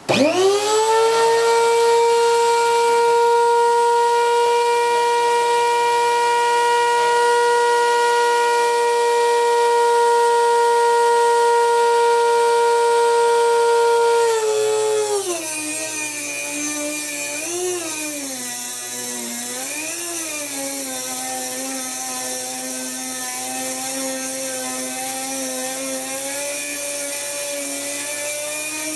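Dremel rotary tool switched on, spinning up fast and running free with a steady high whine. About 14 seconds in, the pitch drops and stays lower as the cutting wheel is loaded by the wire coil being fed into the jig to cut jump rings, with a few brief dips and recoveries in speed.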